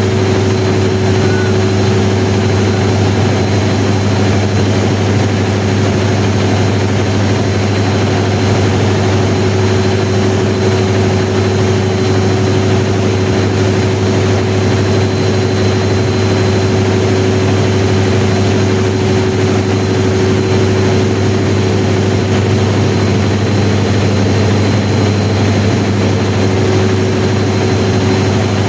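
1000 kW diesel generator set running at a steady speed: a loud, even drone that holds unchanged, with a faint steady high whine above it.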